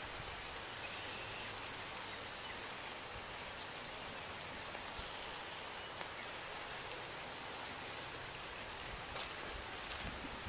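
Steady hiss of high water running through a pond dam.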